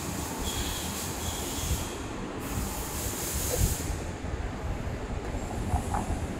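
Steady machinery noise, a low uneven rumble under a high hiss, with a few faint knocks.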